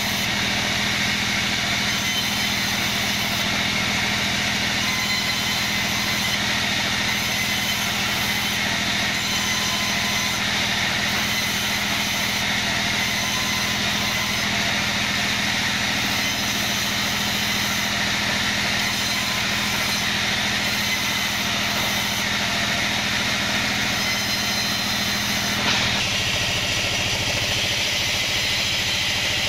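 Band sawmill running steadily, its blade ripping kenanga wood boards fed through by hand: a constant machine hum with a hiss of sawing over it. The tone of the sound changes slightly near the end.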